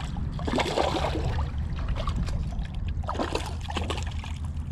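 Smallmouth bass splashing and thrashing at the surface of shallow lake water by the shore, in two bursts: about half a second in and again about three seconds in.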